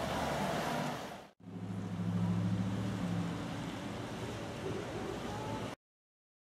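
Street traffic: a steady hiss, then after a short break a vehicle engine's steady low hum, cut off suddenly near the end.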